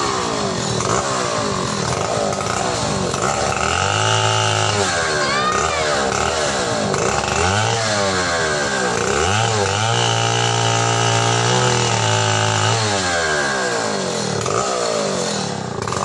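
Two-stroke chainsaw cutting through the branches of a felled tree, its engine revving up and down again and again, with a longer stretch at high revs past the middle.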